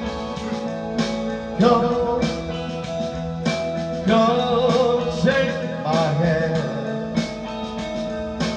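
Music: a man singing long, held notes into a handheld microphone over a backing track with guitar and a steady beat.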